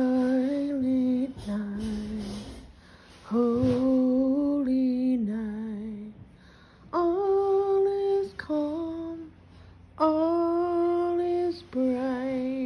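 A woman singing unaccompanied: slow, held notes with vibrato, moving between a few pitches, with short pauses between phrases.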